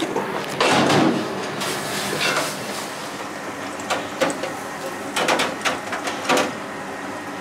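Metal kitchen clatter from a stainless steel bowl and a deep-fat fryer basket being handled: a string of sharp knocks and scrapes over a steady background, the loudest about a second in.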